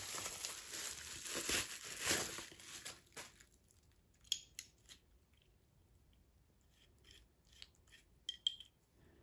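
Bubble-wrap plastic crinkling and rustling as a crimping tool is pulled out of it, stopping about three seconds in. Then a few faint, sharp clicks as the metal tool is handled.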